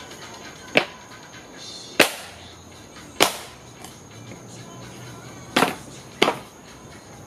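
A wooden pallet being stomped apart underfoot: five sharp cracks and knocks of the wooden slats, about one every second or so, the fourth a quick double.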